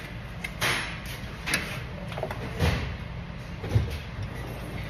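About four separate knocks and clatters, the last near the end the loudest, over the steady low hum of a workshop.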